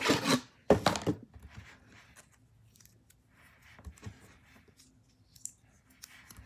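A glitter-covered cardboard box being handled, with two loud scraping knocks within the first second or so. Faint paper rustling and scattered small clicks follow.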